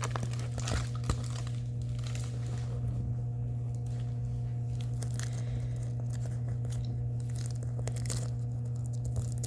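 A steady low electrical hum, with faint crinkling and handling of plastic packaging and a couple of sharp clicks in the first second.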